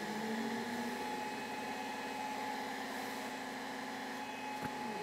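Longer Ray5 20W laser engraver at work: its stepper motors whine steadily as the laser head traces a cut, over the hum of the module's cooling fan. The motor tone stops with a faint click near the end.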